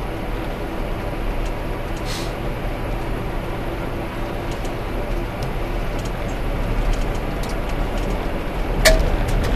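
Steady road noise inside a moving car: engine and tyres on pavement, with a few light ticks and one sharp click near the end.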